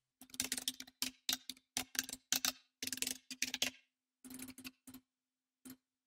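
Typing on a computer keyboard: quick runs of key clicks in bursts, thinning to a few single clicks near the end.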